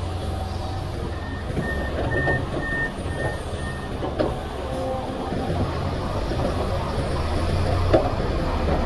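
Diesel engines of a Komatsu PC500LC hydraulic excavator and a loaded dump truck running steadily under load. About a second in, a warning alarm gives a quick run of short high beeps for a couple of seconds. There are two sharp knocks, one around four seconds and one near the end.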